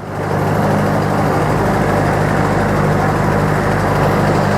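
Passenger ferry boat's engine running, swelling up in the first half second and then holding steady.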